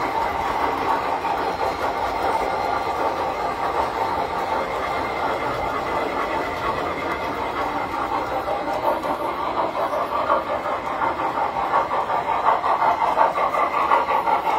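Tinplate model trains running on their track: a steady, dense clattering of wheels and motors, growing louder near the end.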